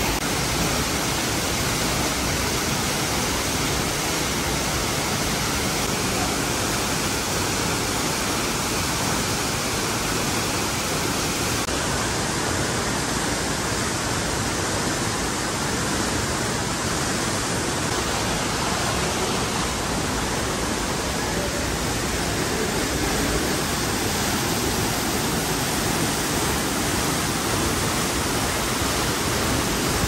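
Waterfall and the stream below it: a steady, unbroken rush of falling and running water.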